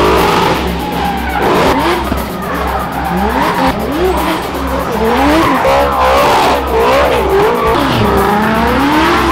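Drift car engines revving hard, their note rising and falling quickly again and again as the throttle is worked through slides, with tyres squealing and skidding. Background music with a steady beat runs underneath.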